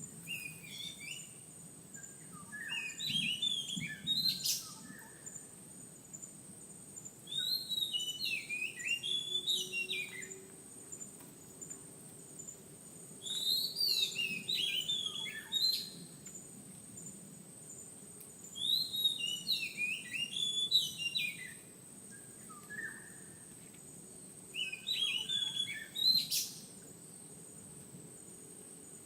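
Magpie-robin singing: five phrases of varied, quick whistled notes, each lasting two to three seconds, with pauses of a few seconds between them.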